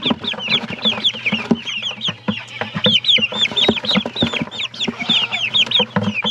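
A bucketful of young Cornish Cross broiler chicks peeping constantly, several high, arching peeps a second overlapping one another, with short knocks and scrabbling of feet and flapping wings against the plastic bucket.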